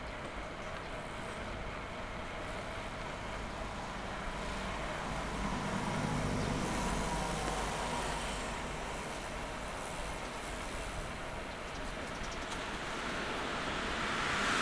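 Road traffic noise from passing motor vehicles. One pass grows louder with a low rumble around the middle, and another builds near the end.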